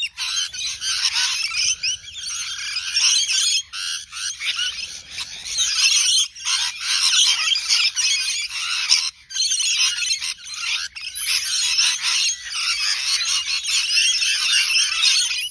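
A flock of small birds chirping and chattering without pause, many short high notes overlapping.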